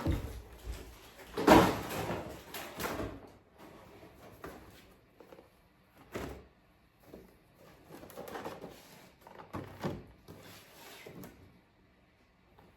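A run of knocks and clatters from objects being handled, the loudest about a second and a half in, fewer and fainter towards the end.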